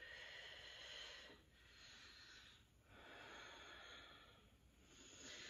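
Faint breathing, a series of soft, slow breaths of about a second each with short pauses between them.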